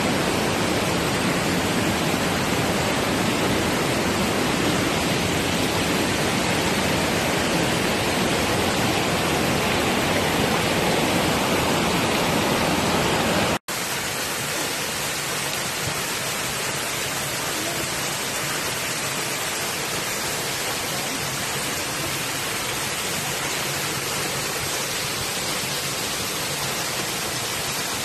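Waterfall rushing steadily. About halfway through the sound drops out for an instant, then returns slightly quieter with less low rumble, from a different part of the falls.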